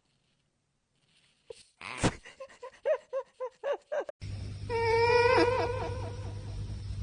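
A domestic cat gives a quick series of short, pitched mewing calls, about four a second, with a sharp knock among the first of them. After a cut, a cat gives a long wavering call into a microphone over a steady low hum.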